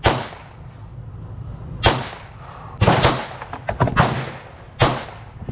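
Kimber Micro 9 9mm pistol fired five times, about a second apart, each shot a sharp crack with a short echo. Fainter shots sound in between, after the third.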